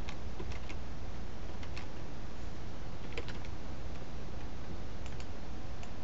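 Computer keyboard keys pressed in small, scattered clusters of clicks, over a steady low electrical hum and hiss.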